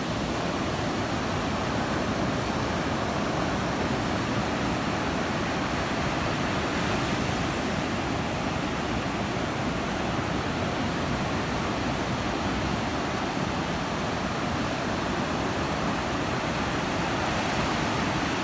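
Steady, unbroken rush of ocean surf and wind along the beach.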